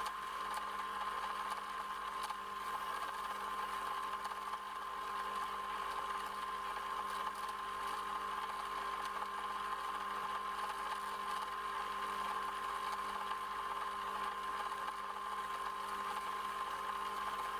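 Shop-built centrifugal dust-collector blower, driven by a 180 W electric motor and working through a cyclone separator, running steadily: a constant hum and a high steady whine over a rush of moving air.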